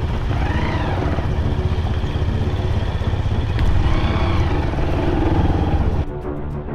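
A vehicle engine running while driving along a rough dirt track, with a steady rumble. About six seconds in, music with a regular beat takes over.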